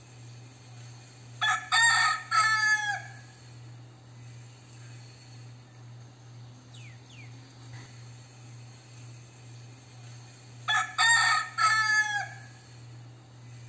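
Crossbred gamecock rooster crowing twice, about nine seconds apart. Each crow is a few quick notes ending in a long, falling final note.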